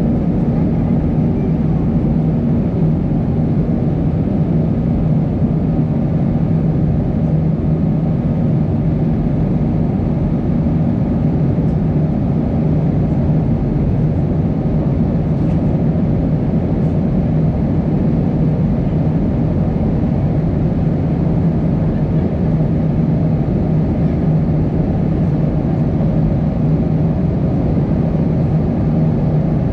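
Steady cabin noise inside an Airbus jet airliner in its climb after takeoff: the low drone of the jet engines and the rush of airflow, unbroken throughout.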